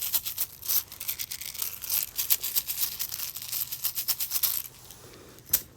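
Beaded fidget loop with large plastic heart beads being shaken and fidgeted: a dense, rapid rattling clatter of plastic beads clicking against each other, which stops a little before the end, followed by one sharp click.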